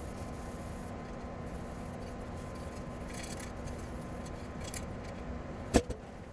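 Steady low rumble and hum, with a few faint clicks and one sharp knock a little before the end.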